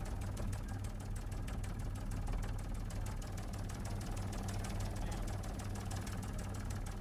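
News helicopter's rotor and engine heard from inside the cabin: a steady low drone with a fast, even chopping.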